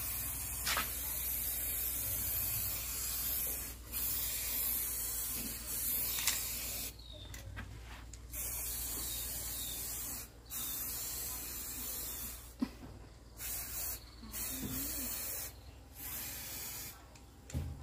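Aerosol spray-paint can spraying in a series of hissing bursts: long bursts of a few seconds at first, then short, quick ones toward the end.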